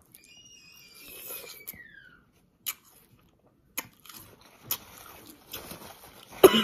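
Crunchy Marian plum (ma-prang) being bitten and chewed, with a few sharp crunches a second or so apart, then a loud cough into a tissue near the end. A high whine slides downward in the first two seconds.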